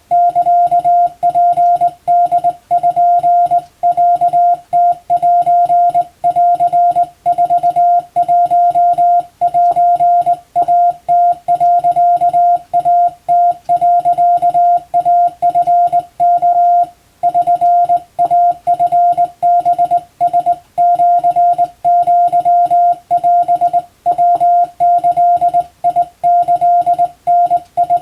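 Hand-keyed Morse code (CW): a single steady tone switched on and off in quick dots and dashes, with short gaps between characters and one longer pause a little past halfway. It is sending Japanese wabun-code telegram text for radiotelegraph receiving practice.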